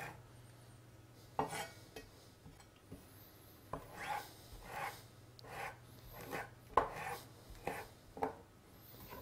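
Chef's knife chopping fresh thyme on a wooden cutting board: one knock about a second and a half in, then a run of chopping strokes at about two a second from nearly four seconds in.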